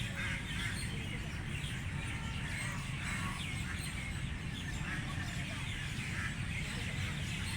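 Many small birds chirping continuously in a busy chorus, over a steady low rumble and faint background voices.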